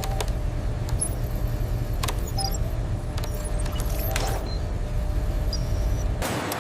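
Factory machinery running with a steady low rumble, scattered sharp mechanical clicks and short high electronic chirps. About six seconds in the rumble cuts off and a broad hiss takes over.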